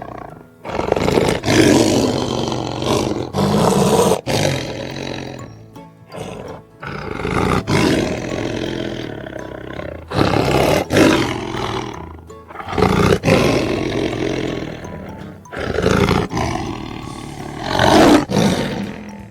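Big cat roaring again and again, a run of loud roars of one to three seconds each, with music playing underneath.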